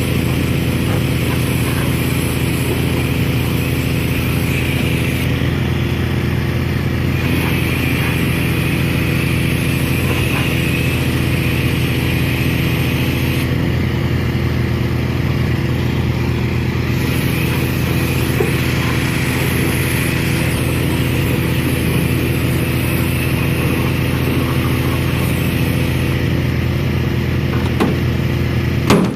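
An engine running steadily at a constant speed, with a hiss above it that rises and falls every few seconds.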